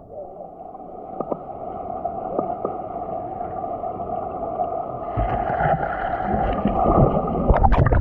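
Muffled rush of river water, heard with the microphone underwater, with a few faint clicks. About five seconds in it grows louder and brighter, and a few sharp knocks come near the end.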